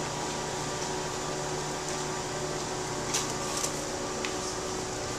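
Steady mechanical hum in the room, with a few brief crinkles a little after three seconds in and once more near four seconds as a foil-backed sheet of shredded plastic flakes is tipped over a tank of water.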